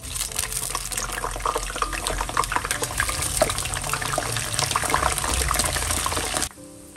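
Water running from a tap and splashing, with many small splashes and drips through it, cutting off suddenly about six and a half seconds in.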